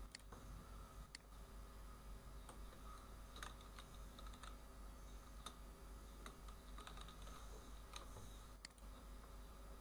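Faint computer keyboard typing: scattered, irregular keystrokes and clicks.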